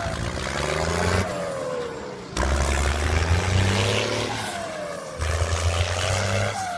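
Engine-revving sound effect, looped so that it restarts abruptly about every three seconds, with a deep hum and a falling whine in each cycle, dubbed over the ride of a small toy tractor.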